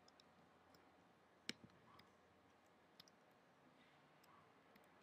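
Near silence with a few isolated short clicks. The clearest comes about a second and a half in, and a softer one about three seconds in.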